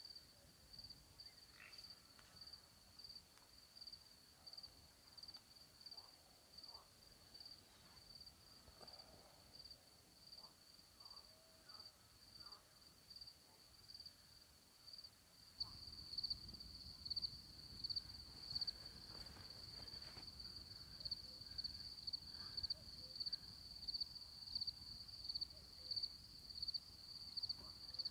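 Field crickets chirping in a steady, regular rhythm, a high, even trill. About halfway through the chirping becomes louder and a low rumble joins in.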